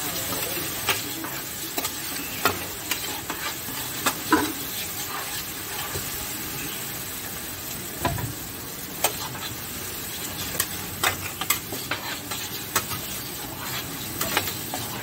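Pad thai noodles sizzling on a large flat pan while metal spatulas scrape and tap against the pan as they toss and stir. The steady sizzle is broken by frequent irregular clinks.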